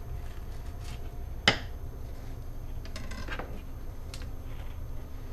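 Fillet knife working along a fish's frame on a plastic cutting board: a sharp click about a second and a half in, a short rattle of clicks around three seconds, and another click after four, as the blade meets bone and board. A low steady hum runs underneath.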